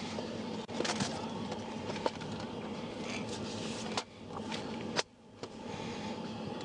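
Steady low rumble of an idling vehicle, with three sharp clicks spread through the middle.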